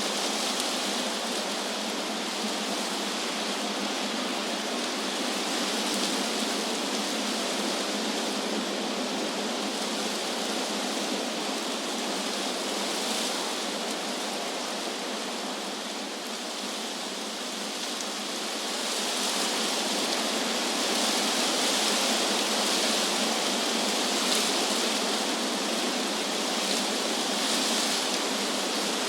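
Wind rustling through tree leaves: a steady, airy hiss that eases slightly around the middle, then swells in a stronger gust through the second half.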